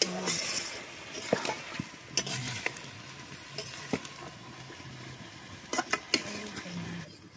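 Chicken pieces sizzling in a metal kadai as a spatula stirs them. Several sharp clinks and scrapes of the spatula against the pan come through, clustered around the first few seconds and again near the end.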